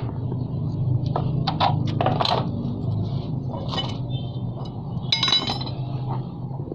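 Several light metallic clinks and knocks, with a brighter ringing metal chink about five seconds in, over a steady low hum.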